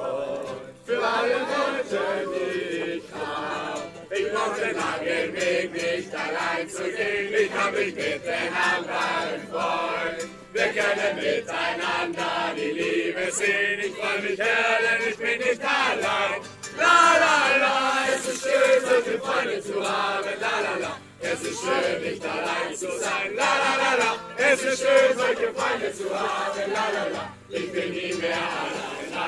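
A crowd of young people singing together in chorus to a strummed acoustic guitar, the singing swelling louder for a few seconds a little past the middle.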